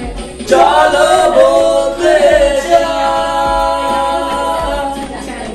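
A Bengali song: a singing voice holding long notes that bend in pitch, getting louder about half a second in.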